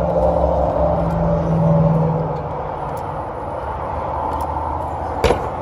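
Steady mechanical drone with a low hum that eases off a little over two seconds in, and a single sharp click near the end.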